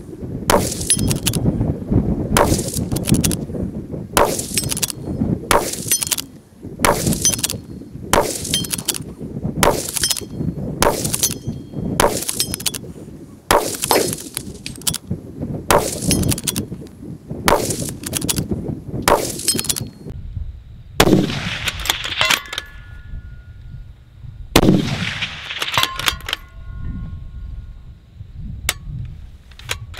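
A fast string of rifle shots from a .308 Ruger Precision Rifle, more than one a second, for about twenty seconds. Then two more shots, each followed by a faint metallic ringing, and a few light clicks near the end.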